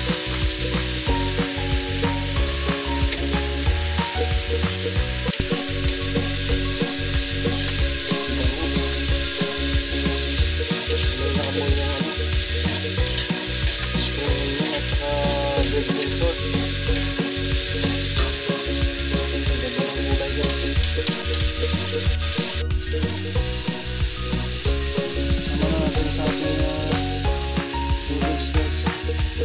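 Sliced vegetables sizzling in hot oil in a nonstick wok, stirred and tossed with a wooden spatula in quick repeated strokes against the pan.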